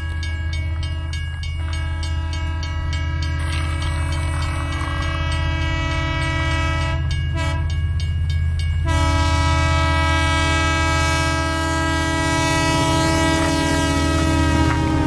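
Train running with a steady low rumble and regular clicking in the first few seconds, while its horn sounds in long held blasts, broken briefly about a second and a half in and again for a couple of seconds around the middle. The sound grows louder toward the end, where the horn dips slightly in pitch.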